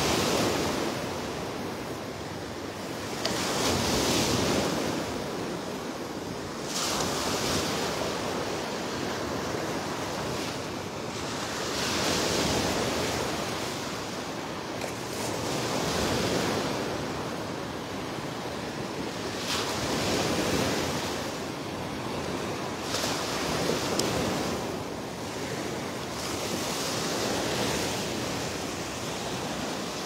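Small Gulf of Mexico surf breaking and washing up the sand, a steady rush of waves that swells and fades about every four seconds.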